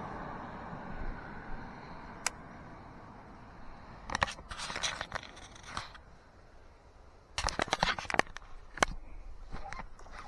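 Clicks and scrapes of fishing gear being handled, a rod and micro baitcasting reel, in two clusters of rapid clicks about four and seven seconds in.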